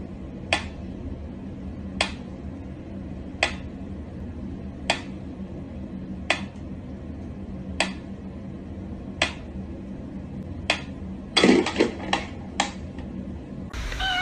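Mechanical pyramid metronome ticking slowly, one sharp tick about every second and a half. About eleven seconds in comes a quick cluster of louder clattering knocks as a cat paws at the metronome.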